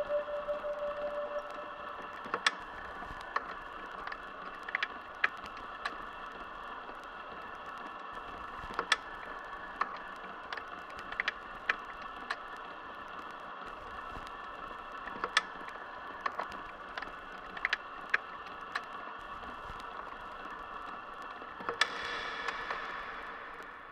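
Quiet outro of an ambient trip-hop track: a steady drone of layered held tones scattered with irregular sharp clicks and crackles. A lower held tone dies away in the first couple of seconds, and near the end the drone swells briefly, then fades out.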